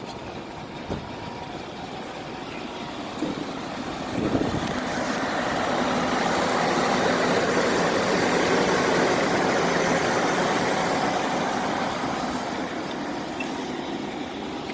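A 1999 GMC 3500 pickup's 5.7-litre V8, an engine with a rod knock, running as the truck drives a loop, growing louder to a peak about midway and then fading as it goes past. A brief clunk sounds about four seconds in.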